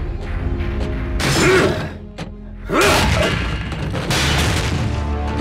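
Animated-cartoon robot sound effects: two loud bursts of mechanical whirring and clanking, one about a second in and one near the middle, over a low droning music score.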